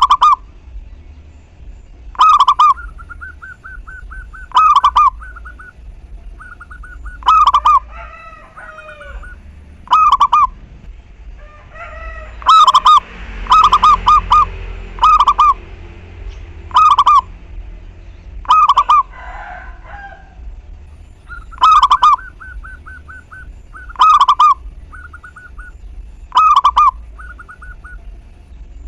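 Zebra doves cooing: a loud, short coo repeated about every two and a half seconds, with runs of softer, rapid staccato notes in between.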